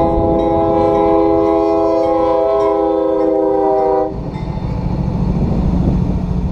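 Air horn of a GE C40-8W diesel locomotive blowing one long multi-note chord as a crossing warning, cutting off suddenly about four seconds in. The rumble of the locomotive's diesel engine and wheels passing close by follows.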